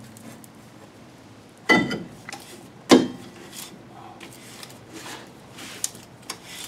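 New rear brake drum going on over the shoes of a 2001 Toyota Corolla: two sharp metallic clunks with a brief ring, about two and three seconds in, then the drum turned by hand with the freshly adjusted shoes lightly dragging against it, the light drag that shows the adjustment is right.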